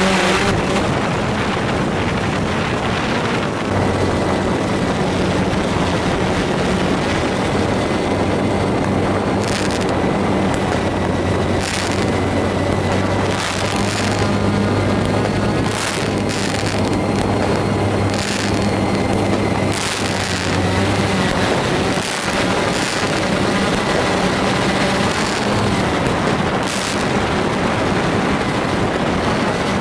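Drone's propellers and motors humming steadily and loudly right at the microphone, with about a dozen sharp fireworks bangs and crackles cutting through from about ten seconds in until near the end.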